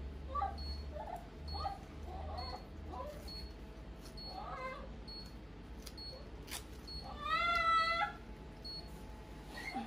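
Dog whining in short high-pitched cries while its leg is being bandaged, with one longer, louder wail about seven seconds in.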